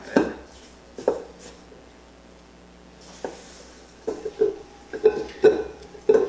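A mixing spoon stirring stiff cookie dough in a stainless steel mixing bowl, knocking and scraping against the metal about nine times at an irregular pace, more often in the second half.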